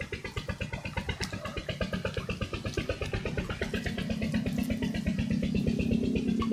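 A small engine running with a fast, even pulse; its hum grows stronger about halfway through.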